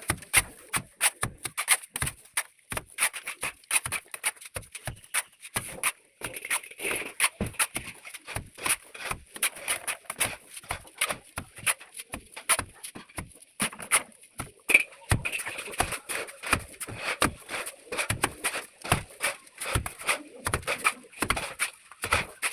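Plastering trowel working cement mortar on a wall: a quick, irregular run of clicks, taps and scrapes, several a second.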